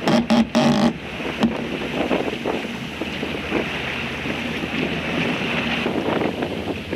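Water rushing and splashing along the hull of a sailboat heeled under sail, with steady wind buffeting the microphone. A loud held tone stops abruptly about a second in.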